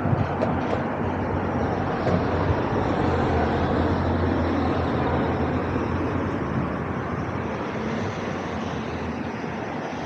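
A train passing on the nearby railway line: a steady low rumble that slowly fades over the second half.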